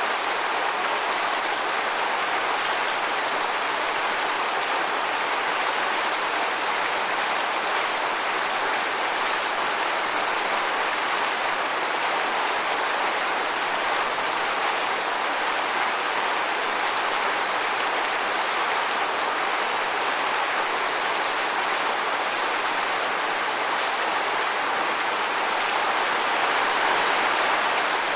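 Waterfall: water falling and rushing in a steady, even hiss-like roar without pauses.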